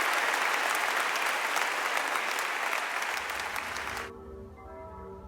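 Audience applauding, cut off abruptly about four seconds in. Church bells then ring on more quietly, several steady pitches overlapping over a low hum.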